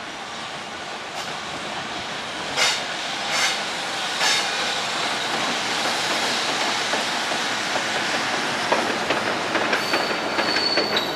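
Class EF210 electric locomotive running light, its wheels clacking over rail joints: three clacks about two and a half to four seconds in, then a quicker run of clacks from about nine seconds in. A brief high wheel squeal comes near the end.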